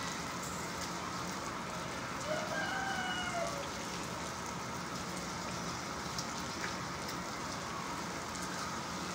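Steady rain falling on wet concrete, a continuous hiss with scattered drop ticks. A brief high call sounds about two seconds in.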